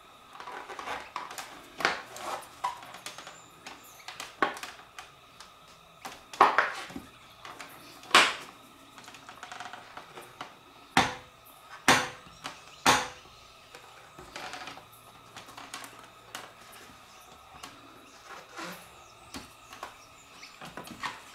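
A plastic scoring tool scraped and pressed in short strokes across thick gloss paper, pressing grooves into the paper's edge. There are irregular scratches and taps, with a handful of sharper clicks in the middle.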